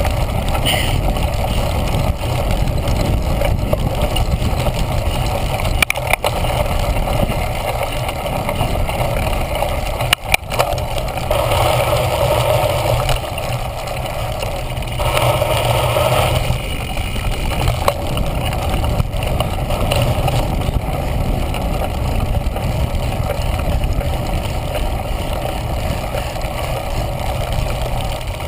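Steady wind rush and ride rumble of a cyclocross bike crossing a grass course, picked up by a handlebar-mounted GoPro Hero. A couple of sharp knocks come as the bike jolts, about six and ten seconds in.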